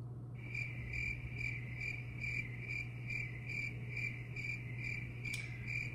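Cricket chirping in an even, pulsing trill of about two and a half chirps a second, starting abruptly about half a second in: the "crickets" sound effect marking an awkward silence.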